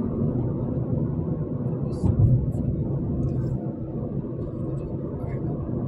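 Road and engine noise inside a moving car's cabin at highway speed: a steady low rumble, with a brief louder thump about two seconds in.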